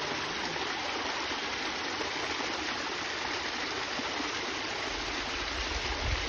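Small waterfall splashing down a rock cleft into a pool: a steady rushing of water. A low rumble comes in near the end.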